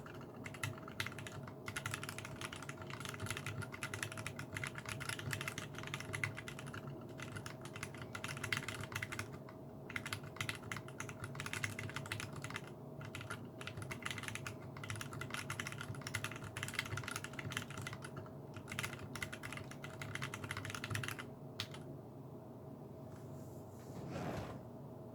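Custom mechanical keyboard from a Revo RJ kit with Zealios 62g tactile switches, typed on in quick runs of keystrokes with brief pauses. The typing stops about three quarters of the way in. A faint steady hum runs underneath.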